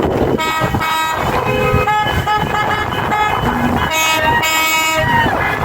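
Passing cars honking their horns in overlapping toots of different pitches, over steady road traffic. Near the end one horn drops in pitch as it goes by. The honking is in response to a roadside "Honk if you hate Trudeau" sign.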